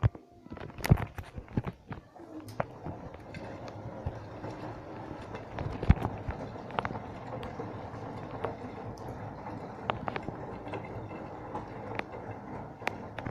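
Arçelik washing machine running: a steady machine noise with irregular knocks and clicks, heaviest in the first couple of seconds.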